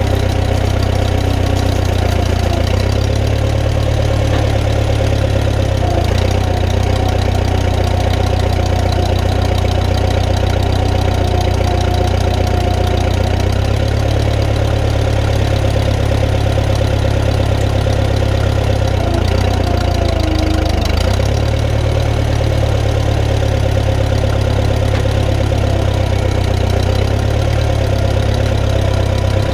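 The 1959 Case 300B (311B) tractor's four-cylinder gas engine running steadily, its note shifting slightly a few times.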